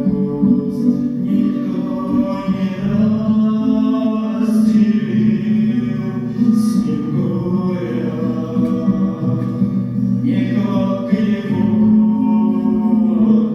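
Voices singing a song with long held notes.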